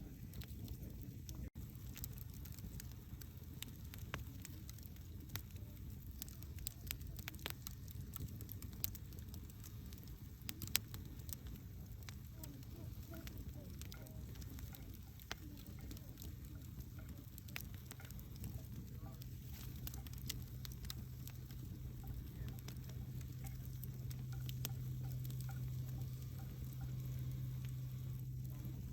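Wood fire burning, crackling with scattered sharp pops and one louder pop about eleven seconds in, over a steady low hum.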